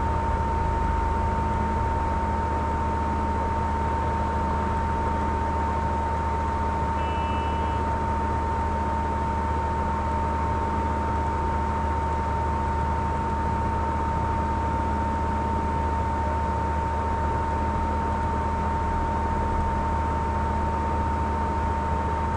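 Steady hiss and low hum with a constant high-pitched whine, like electrical noise on the recording. A brief faint beep-like tone comes about seven seconds in.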